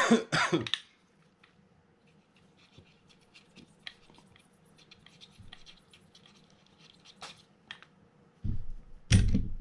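Handling of a stripped Shimano TLD 50 LRS reel frame on a workbench: a clattering burst at the start, then faint scratches and small clicks of fingers on metal parts, then two heavy thumps near the end as the frame is knocked against and set down on the bench.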